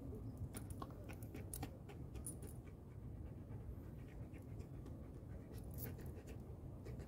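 Belgian Malinois panting, with light metallic clinks of a chain training collar being handled and fitted around its neck.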